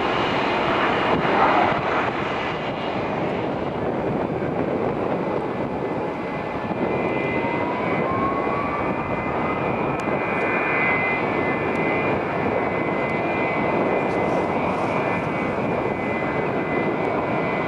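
Jet engines of an Emirates Boeing 777 running as it rolls along the runway: a steady rushing noise with a high whine, and a brief rising tone about eight seconds in.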